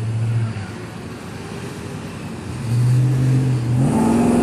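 Pickup truck engine running as the truck rolls slowly past at close range, a steady low hum that gets louder over the last second and a half.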